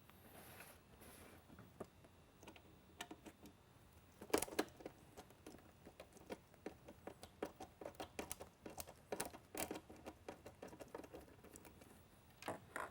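Faint, irregular small clicks and taps of a screwdriver working out the screws that hold a strobe beacon's dome to its base, with a louder pair of knocks about four seconds in.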